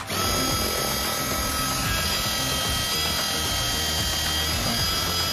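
Cordless drill boring into a concrete slab through a metal post-base bracket, running steadily at full speed with a high whine; it starts abruptly at the very beginning.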